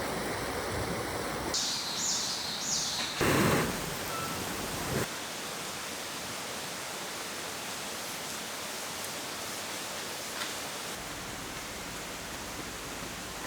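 Steady rain falling in a forest, an even hiss. Three short high chirps come near the start, followed by a louder rush of noise lasting about two seconds.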